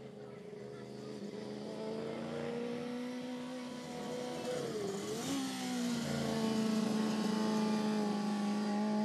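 Formula Student race car's engine running at steady high revs, growing louder as the car comes closer. About five seconds in the revs dip briefly, then pick up again.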